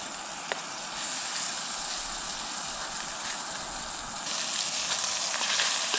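Fish fillets sizzling in oil in a small frying pan on a gas canister stove, as a steady frying hiss that grows louder about a second in, with a few light ticks as the pieces are turned.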